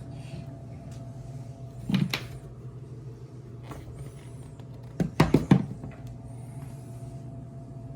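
A single knock about two seconds in, then a quick cluster of four or five sharp knocks about five seconds in, like things being handled or a cupboard or door being worked, over a steady low hum.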